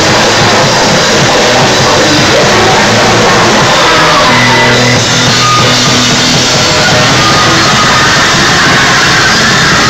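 Live rock band playing loud: drum kit and electric guitars, steady throughout.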